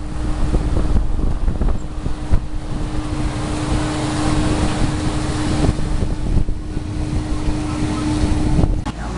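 Wind buffeting the microphone over the steady drone of a cruise boat's engine, with a constant low hum underneath.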